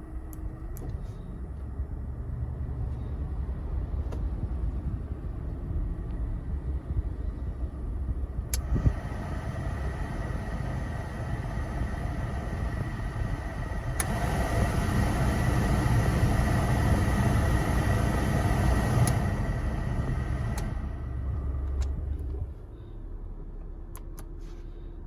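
A car with its engine running and a steady low rumble. A rushing noise steps up after a click about a third of the way in, gets louder after another click about halfway, then drops back after two more clicks near the end.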